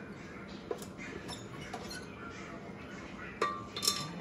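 Rice being scooped out of a stainless rice cooker onto a plate: a few soft scrapes and light clicks of the serving spoon. About three and a half seconds in come two sharper metallic clinks with a short ring as the cooker's lid is handled.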